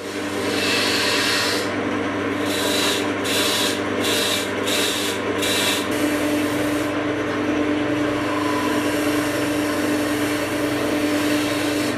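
SIP wood lathe running with a steady motor hum while a tool rubs and scrapes the spinning spalted beech goblet. The scraping comes in about five quick strokes between two and six seconds in, then settles into an even rush.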